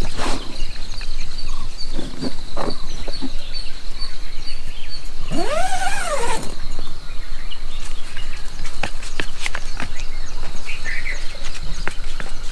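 A canvas tent flap is handled and fastened, giving scattered clicks and rustles. A high insect chirp pulses about twice a second throughout. About five seconds in, an animal gives one call lasting about a second that rises and then falls in pitch.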